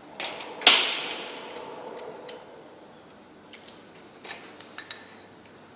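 Copper pipe and an adjustable pipe cutter being handled: a sharp metallic knock under a second in that rings briefly as it fades, followed by a few lighter clicks.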